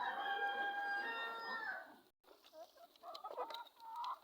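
A rooster crowing: one long, steady call of about two seconds that ends near the middle. After a brief dropout, chickens cluck in short, scattered calls.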